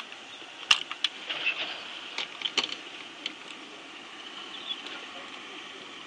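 Outdoor savanna ambience: a steady high-pitched hiss with a few sharp clicks in the first half.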